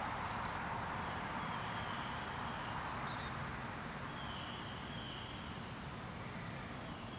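Rural outdoor ambience: a steady hum of distant road traffic, with faint bird chirps and a faint high note about a second long that recurs every two or three seconds.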